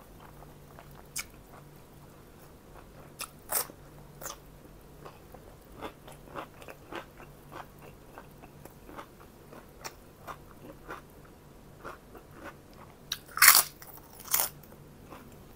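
Close-up eating sounds: a person chewing and biting crunchy food, soft clicks throughout with a few louder crunches, the loudest near the end.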